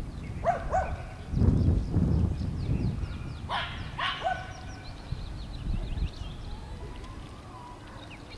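A dog barking in two short pairs: two barks under a second in, and two louder ones about three seconds later. A low rumble in between is the loudest sound, and birds chirp in the background.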